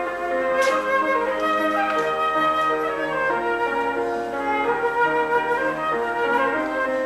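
Live instrumental music: a flute-like melody held over sustained chords, with a brief bright note struck about half a second in.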